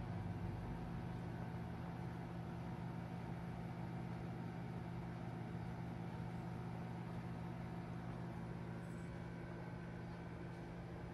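A steady low machine hum with no change in pitch or level.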